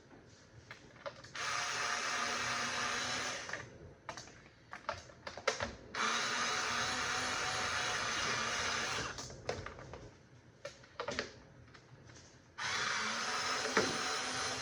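A power drill-driver running in three bursts of a few seconds each, backing screws out of a box fan's plastic housing, with small clicks and handling knocks between the bursts.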